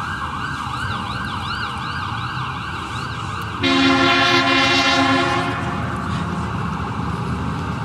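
Emergency vehicle siren passing, yelping up and down about three times a second. About three and a half seconds in, a loud, deep horn blast sounds over it for about two seconds.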